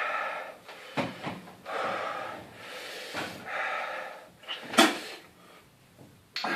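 A man breathing hard in and out through his mouth in long, hissing breaths, the way one draws air over a tongue burning from a super-hot chilli. A sharp click about a second in, and a louder knock near the five-second mark.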